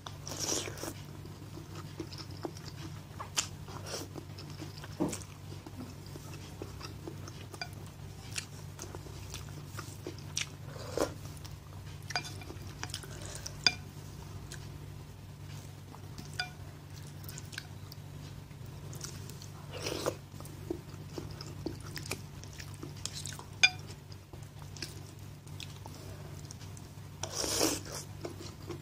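Person eating spicy instant noodle soup: slurping noodles in three longer swells, at the start, around the middle and near the end, with chewing and the spoon and chopsticks clicking against the bowl. A steady low hum runs underneath.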